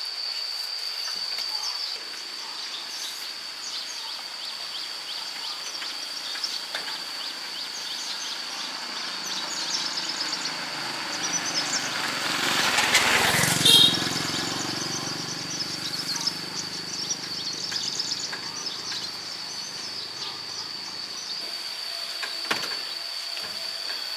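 Rural outdoor ambience: a steady, high insect drone with scattered bird chirps, and a louder swell of noise for a couple of seconds about halfway through.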